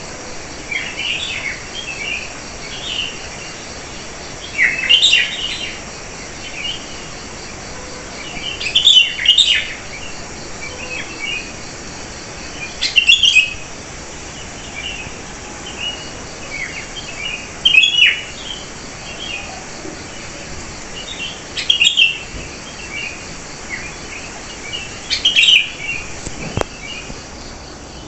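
Wild birds singing: a loud burst of chirping song comes about every four seconds, with softer scattered chirps between, over a steady high hum.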